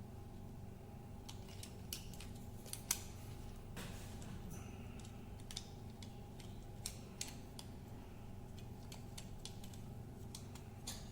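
Small, irregular plastic clicks and taps as a modular switch plate is handled and a dummy placeholder module is pressed into the plate's clips, over a steady low hum.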